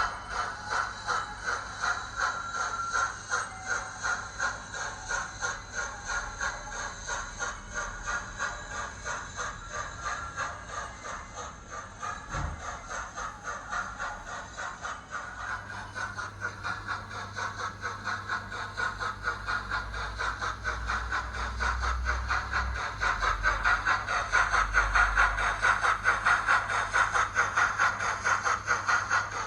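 Model steam locomotive's DCC sound decoder playing rhythmic steam exhaust chuffs of a Gresley A4 sound file through its small onboard speaker, with the model's mechanism running on the track. The chuffing grows louder in the second half.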